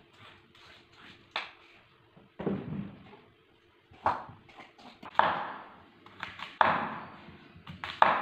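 Long striped cucumbers being handled and set down on a wooden chopping board: about six sudden knocks, each trailing off in a short rustle.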